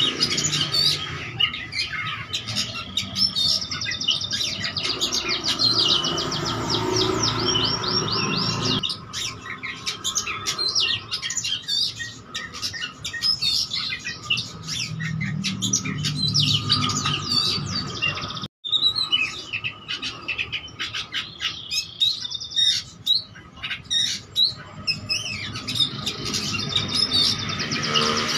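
Oriental magpie-robin (kacer) singing continuously in a long, varied, fast song of chirps and rapid trills, a full-repertoire song packed with mimicked calls of other birds. The song breaks off for an instant about two-thirds of the way through.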